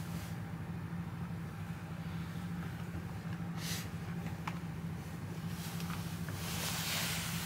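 Steady low mechanical hum, like a motor or engine running nearby, with a brief rustle of a puffy jacket about three and a half seconds in and a longer rustle near the end.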